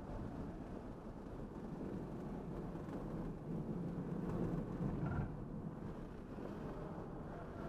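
Road, tyre and wind noise inside the cabin of a Tesla Model 3 Dual Motor Long Range on track as it slows hard and corners; the low rumble swells about four to five seconds in.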